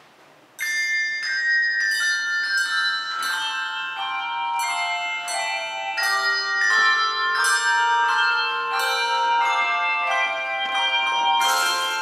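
Handbell choir playing: after about half a second of quiet the piece begins with a sudden chord, then struck handbells ring out in a steady pace of notes and chords, each note sustaining and overlapping the next.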